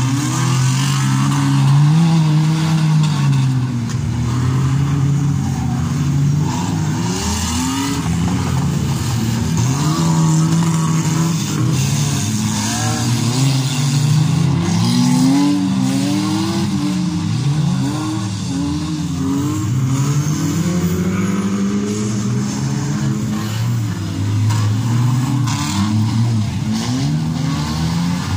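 Engines of several demolition derby cars running and revving at once, their pitches rising and falling as the cars accelerate and slow.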